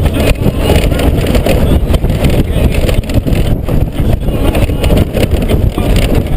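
Wind buffeting a helmet-mounted camera's microphone over a Honda GoldWing GL1500 motorcycle running along a gravel track, with the rumble of the tyres on loose stones.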